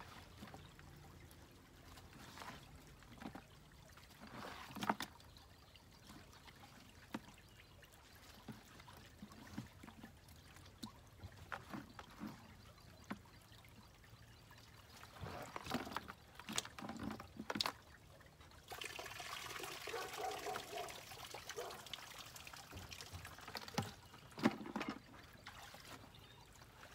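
Shallow ditch water splashing and trickling as a plastic bucket is dipped and water is scooped and poured, with scattered small splashes and knocks and a longer spell of pouring about nineteen seconds in.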